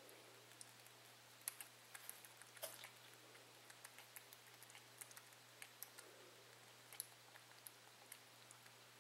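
Young cottontail rabbit nibbling and chewing at a hand-held plastic feeding tip: faint, irregular small clicks and ticks, over a low steady hum.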